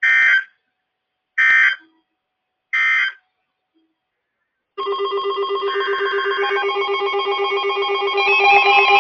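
A RadioShack 12-262 weather radio sounds three short bursts of warbling digital data tone, about a second and a half apart: the SAME end-of-message code that closes a NOAA Weather Radio alert. About five seconds in, music with guitar begins and grows louder near the end.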